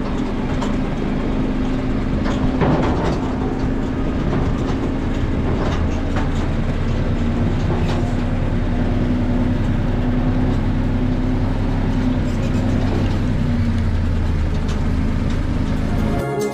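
Tractor engine running with a steady low drone while riding on the tractor down a rough gravel track, with knocks and rattles from the canopy frame and trailer.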